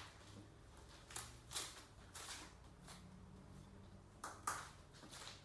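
Faint handling noises: a few soft knocks and rustles at irregular intervals, the loudest a pair of knocks about four and a half seconds in, over a quiet room hum.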